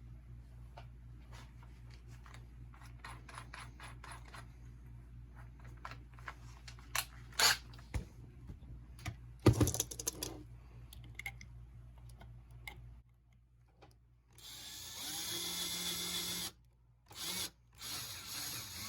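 Power drill drilling out the rivet post on a die-cast toy car's base, running in bursts over the last few seconds. Before that come clicks and two sharp knocks as the tools are handled, over a low steady hum that stops about two-thirds of the way through.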